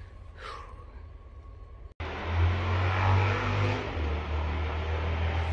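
A motor vehicle driving by, its engine and tyre noise starting abruptly about two seconds in, swelling and then easing, with the engine's low note dropping in pitch near the end.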